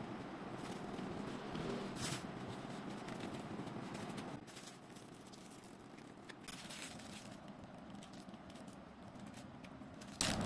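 Faint rustling of a banana-leaf food wrapper being opened, then crinkling of a small plastic bag of curry being opened and squeezed out, with a few soft crackles over a steady background hiss; it grows quieter about halfway through.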